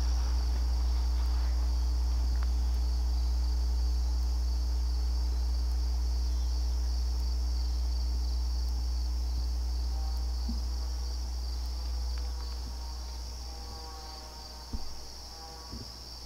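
A steady high-pitched chorus of crickets and other insects in a summer evening garden, under a loud steady low rumble that fades away about three-quarters of the way through. A couple of soft knocks near the end.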